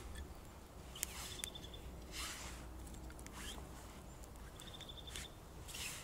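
Small campfire of split kindling burning quietly, with occasional soft crackles, a couple of sharp pops and short hisses. A short, high, rapid trill sounds twice, about a second in and again near five seconds.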